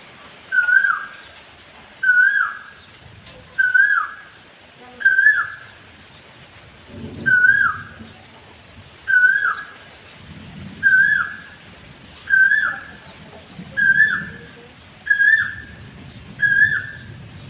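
An animal's high call, a short note that drops sharply in pitch, repeated at an even pace about every one and a half seconds, eleven times, over a low background rumble.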